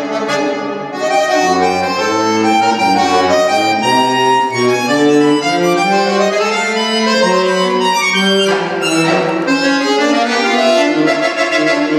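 Solo accordion playing a contemporary concert piece: quickly changing notes and chords over a moving low line. About eight and a half seconds in, a dense, noisy cluster surges upward; near the end, short repeated low notes.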